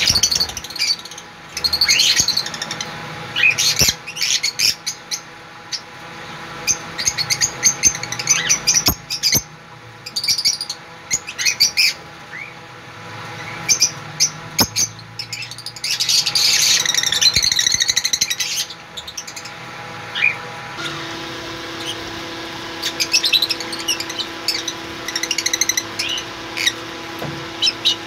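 Lovebirds chirping and chattering, many short, sharp, high calls, thickest in a busy burst of chatter about two-thirds of the way in. A steady faint hum runs underneath.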